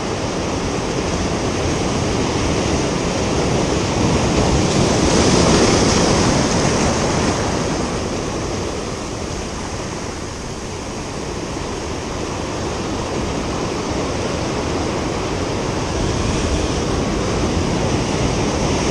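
Sea surf washing over shoreline rocks: a continuous rush of breaking water that swells about five seconds in, eases off, then slowly builds again.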